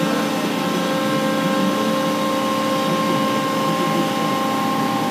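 An engine running steadily at constant speed, a level hum with no change in pitch.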